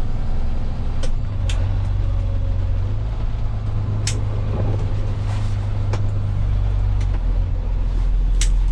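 Tow truck engine running with a steady low drone that shifts in pitch a couple of times, with a few sharp clicks over it.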